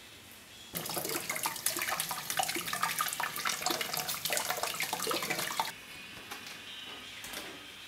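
Kitchen tap running, the water splashing over a peeled onion held under it by hand. It starts suddenly about a second in and shuts off suddenly about two seconds before the end.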